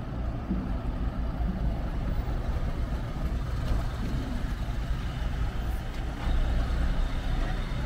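Large cargo truck's diesel engine running as it drives slowly across the pier, a steady low rumble that grows louder near the end as the truck comes closer.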